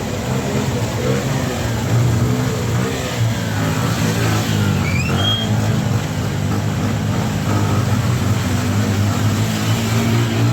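A motor vehicle's engine running steadily, with a continuous low hum and street noise.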